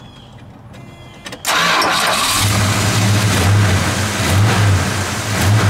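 The warm 440 Super Commando V8 of a 1970 Plymouth Superbird starting. It catches suddenly about a second and a half in, flares up, then settles within a second into a steady, pulsing idle.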